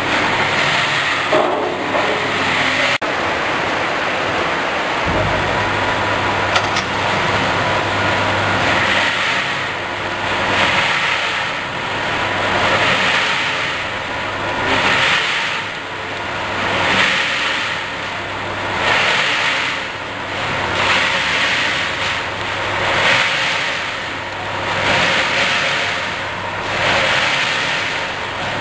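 Rotary herb dryer with an automatic stirrer running: a steady machine noise with a low hum, swelling in a slow whoosh about every two seconds as the drum turns.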